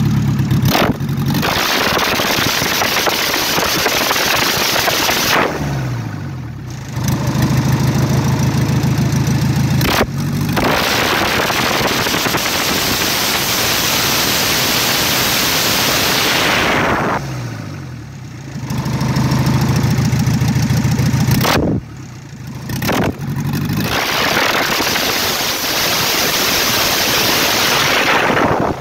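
Volkswagen TDI Pumpe-Düse diesel engine, tuned, revved and held at high revs for several seconds at a time through an open pipe in the engine bay that spits flame. It drops back to idle three times in between.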